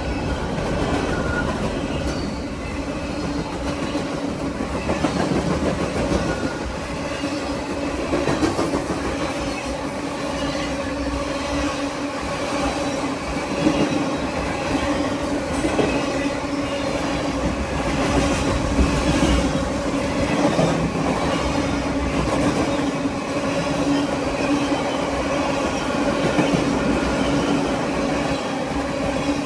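Freight cars of a BNSF manifest train rolling past at speed, their wheels clattering over the rail with a steady tone running under the noise.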